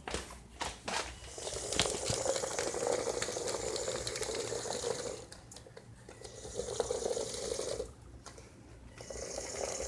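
Makeblock robot tank running on its tracks, its small electric gear motors humming in three stop-start spells of a few seconds each, with a couple of clicks near the start.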